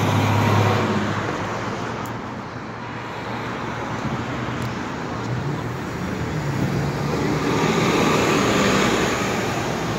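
Road traffic noise with a stopped TTC city bus's engine running close by; the engine note is strongest in the first second, then rises and swells louder about eight seconds in.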